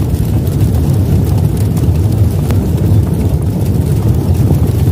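Loud, steady low rumble: a cinematic intro sound effect.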